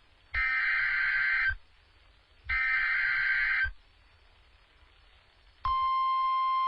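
Two Emergency Alert System SAME digital header bursts from NOAA Weather Radio, harsh two-tone data screeches of about a second each with a second's gap between them. About five and a half seconds in, the steady 1050 Hz weather radio warning alarm tone begins, signalling that a warning is about to be read.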